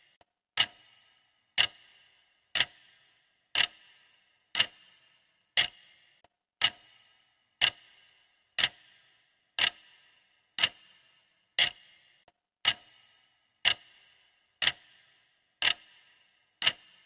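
Clock ticking steadily at one tick a second, each tick a sharp click with a brief ring.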